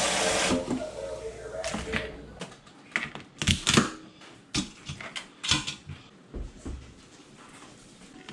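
Kitchen tap water splashing into a stainless-steel sink for the first second or two, then a run of sharp, irregular knocks and clicks as a knife chops blue crabs on a plastic cutting board.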